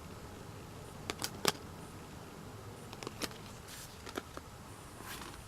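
Light handling noise from a K-pop album and its paper and card contents: a few scattered small clicks and taps, with a couple of brief soft rustles.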